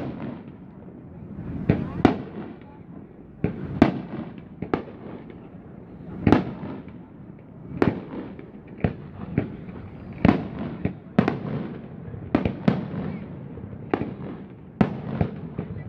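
Aerial fireworks shells bursting: an irregular series of sharp bangs, roughly one or two a second, some followed by a short echo.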